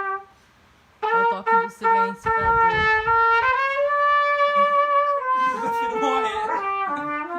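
Solo trumpet playing a slow, mournful melody. After a short pause it plays a few notes, holds one long higher note through the middle, then steps down in pitch near the end.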